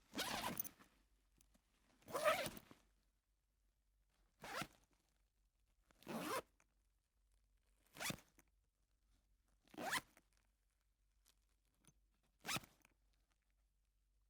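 Backpack zipper pulled open or shut seven times, one quick zip about every two seconds. The first two pulls are longer and the rest are short, sharp strokes.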